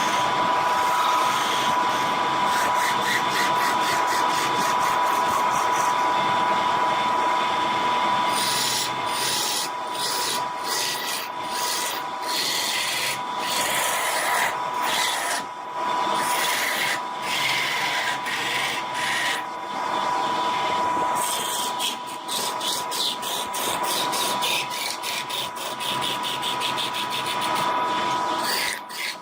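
Wood lathe running with a steady high whine while a tool rubs and scrapes against the spinning wood, turning into rapid pulsing strokes about a third of the way in.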